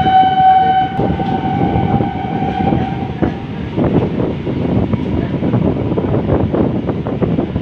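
Indian local train's horn sounding one steady note, strong until about a second in and fading out by about three seconds. The wheels then clatter and knock irregularly as the train rolls slowly over the points and rail joints into the station.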